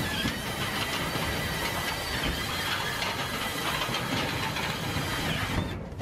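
Cordless drill running and boring through the sheet-metal return of an air handler, with a steady high whine. It stops near the end.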